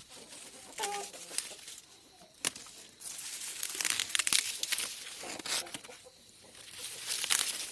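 Dry corn leaves and husks rustling and crackling as ears of corn are snapped off the stalks, with a sharp snap about two and a half seconds in. A chicken clucks briefly about a second in.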